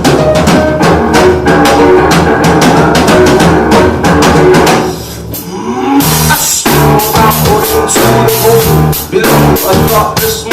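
Live band playing the instrumental intro of a rock song, with a drum kit keeping a steady driving beat. About five seconds in the band drops back briefly, then comes back in full at around six seconds.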